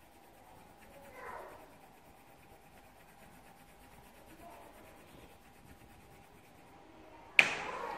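Faint scratchy rubbing, then a sudden loud knock near the end.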